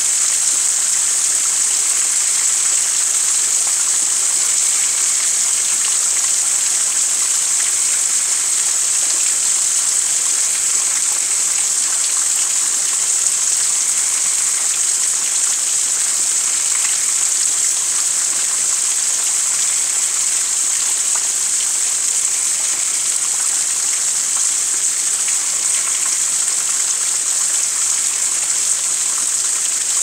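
Steady rain falling: an even, high hiss that does not let up.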